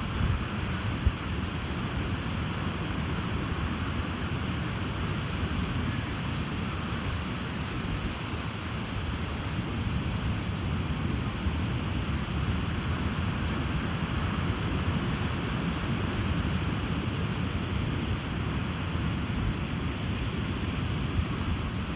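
Ocean surf washing steadily onto a beach, mixed with wind and a low rumble of wind on the microphone.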